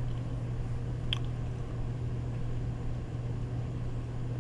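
Steady low mechanical hum, with a single brief sharp click about a second in.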